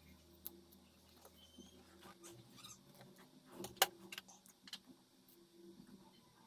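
Faint scattered clicks and light taps, with one sharper click a little before four seconds in: small tools and phone parts being handled.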